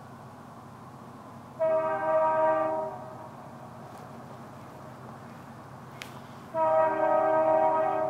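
Diesel locomotive air horn, on CN 5767, an EMD SD75I, sounding two long blasts a few seconds apart. Each is a steady chord of several notes, and the second is the longer.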